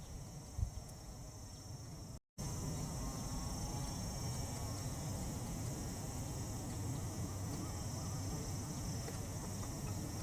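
Steady high chorus of crickets over a low rumble of wind on the microphone, with faint scattered crackle from burning dry weeds. A single short knock about half a second in, and a brief dropout of all sound just after two seconds, after which everything is a little louder.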